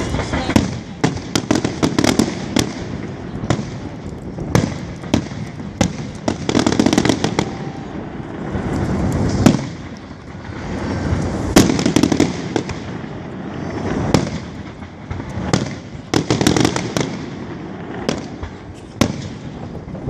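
Fireworks display: a rapid, continuous run of sharp bangs and crackling bursts over waves of rushing, booming noise.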